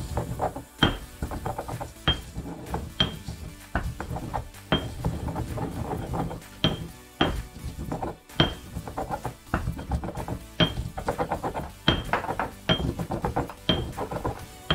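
Stone pestle grinding whole spices and dried herbs in a stone molcajete: a gritty scraping grind broken by sharp clinking knocks of stone on stone, about one to two a second and unevenly spaced.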